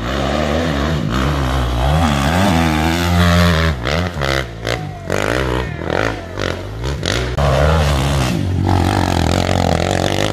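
Off-road dirt bike engines revving hard under load on a steep dirt climb, their pitch rising and falling again and again, with short choppy throttle surges in the middle.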